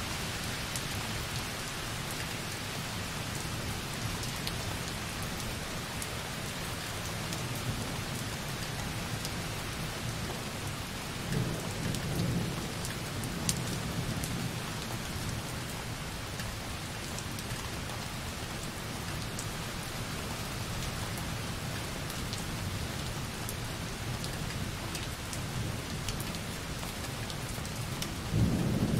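Light rain falling softly against a window as a steady hiss of drops, with distant thunder rumbling low behind it. The thunder swells about a third of the way in and comes again more sharply near the end.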